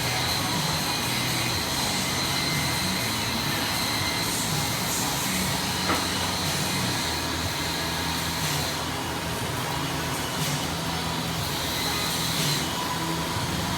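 Steady whir of a running machine, with a thin high whine that drops out for a few seconds past the middle and comes back near the end.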